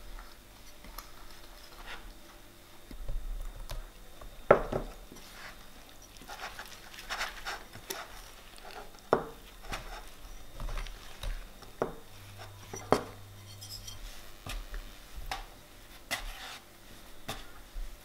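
A metal utensil clinking and scraping against a translucent red glass mixing bowl as flour, yogurt and water are stirred into a dough. It makes irregular knocks, with a few louder clinks.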